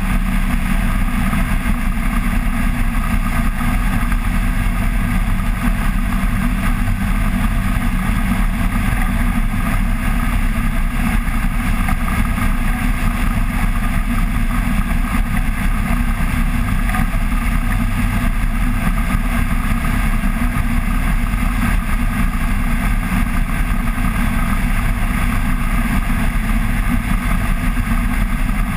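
Flex-wing microlight trike in cruising flight: its engine and pusher propeller running steadily, mixed with wind rushing over the wing-mounted camera.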